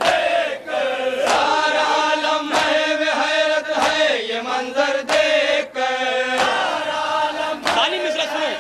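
A group of men chanting a nauha, a Muharram lament for Karbala, in unison, with sharp beats about every second and a quarter that keep time, as from matam (rhythmic chest-beating).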